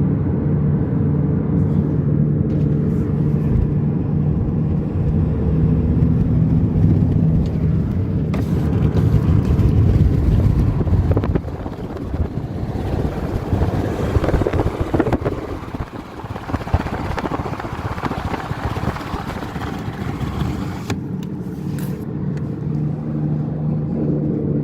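Droning hum of a damaged left rear wheel bearing on a Toyota RAV4, heard from inside the cabin while driving, over tyre and road noise. The hum fades under rougher road noise about halfway through and comes back near the end.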